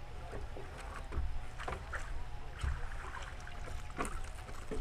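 Splashing and sharp knocks as a hooked trout is drawn in to a wooden pier and scooped up in a landing net.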